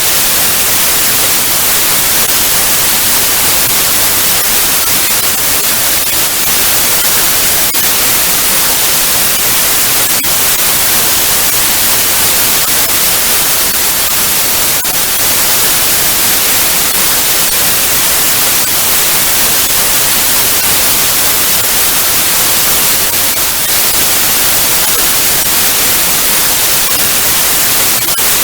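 Analogue TV static: a steady, loud hiss of white noise, brightest in the treble, with faint crackles here and there.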